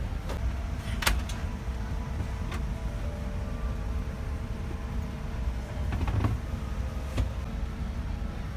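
Steady low rumble of a Boeing 787-9 cabin's air system with a constant hum over it. A few light clicks and knocks come through, the sharpest about a second in.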